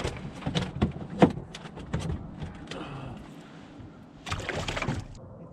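Knocks and thumps on a small fishing boat, several in the first second and a half, then a short rushing burst near the end.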